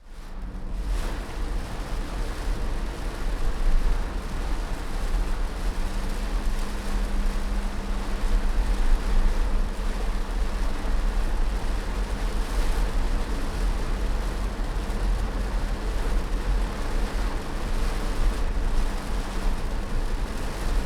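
Rain on a Chevrolet car heard from inside the cabin: a steady, even hiss of rain over a deep low rumble and a faint steady hum, fading in over the first second.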